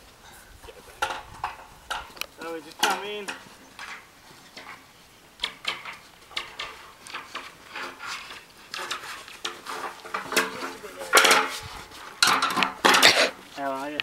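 Metal rails and end-frame parts of a portable sawmill clanking and knocking together as they are handled and set into place, with a run of louder clanks near the end.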